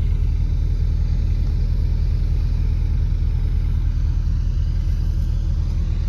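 Diesel engine of harvest machinery idling steadily: a low, even rumble.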